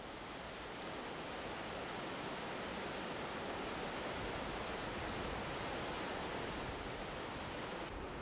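Large waterfall: a steady, even rush of a heavy flow of water pouring over a rock ledge.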